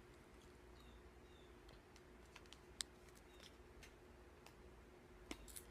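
Near silence over a faint steady hum, broken by a few light clicks and rustles from snack packets being handled, with one sharper tick near the middle.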